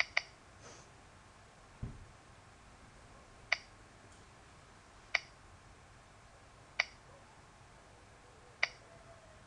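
Computer mouse button clicks: a quick double click at the start, then four single clicks spaced about a second and a half apart. A dull low thump comes about two seconds in.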